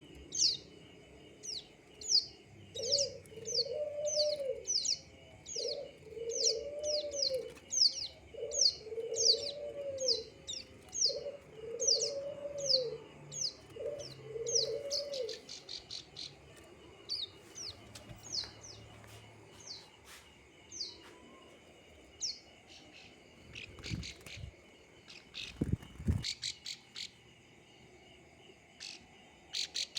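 Plain prinia singing: a long run of quick, high, down-slurred notes, about two a second, thinning out to scattered notes after the middle.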